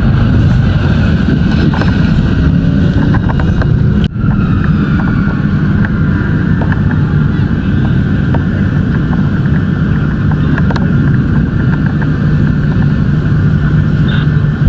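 A vehicle engine running steadily, with a brief dropout about four seconds in.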